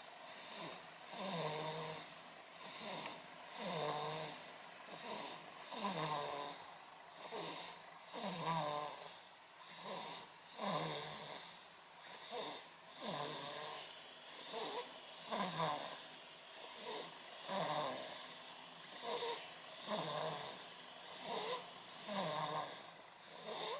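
Sleeping baby snoring: a short, pitched snore with each breath, repeating about every one and a half seconds, each one sliding down in pitch.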